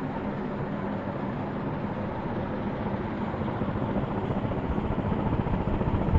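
1970s SMC H56 ceiling fan running: a steady rush of moving air over a continuous low hum from its motor. The sound grows gradually louder.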